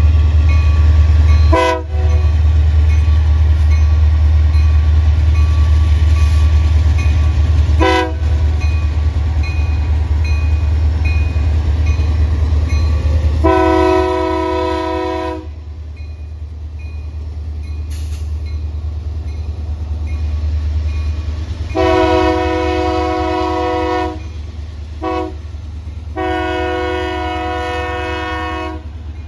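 Union Pacific freight train's diesel locomotives rumbling past, loud and deep through the first half and easing after about 13 s. The air horn sounds over it: two brief toots, then long blasts, with a long–short–long sequence near the end, the pattern sounded for a grade crossing.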